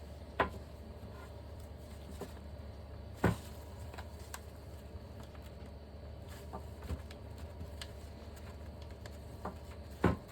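Light clicks and knocks from a brake caliper piston and caliper being handled while the piston is pushed by hand into its bore. Three sharper knocks stand out, about half a second in, just after three seconds and near the end, with fainter ticks between, over a low steady hum.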